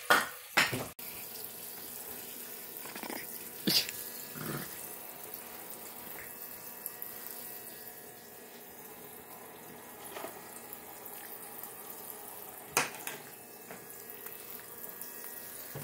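Toy play sink's faucet running, a thin stream of water splashing into the basin over a faint steady hum. A few sharp knocks stand out, the loudest near the start and about 13 seconds in.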